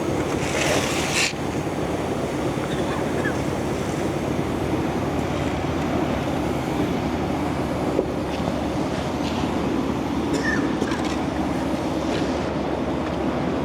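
Heavy-equipment engine running steadily at a constant speed, with a brief hiss about a second in.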